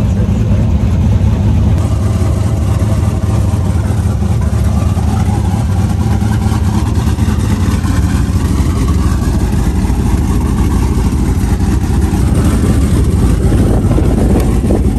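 Twin-turbo LS V8 in a regular-cab short-bed street truck idling with a steady, loud low rumble.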